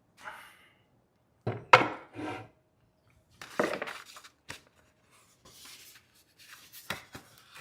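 Handling noises while unboxing a power tool: cardboard and packaging rubbing and sliding in a few short, irregular bursts, with a sharp knock about two seconds in as the loudest sound.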